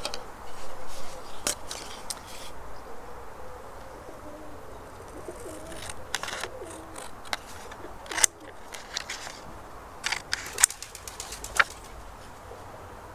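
Scissors cutting out a paper craft piece, giving a series of sharp, irregular snips.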